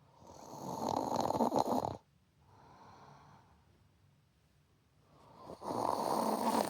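A woman snoring hard in her sleep: two long, loud snores, the first cutting off abruptly about two seconds in, with a much softer breath between them.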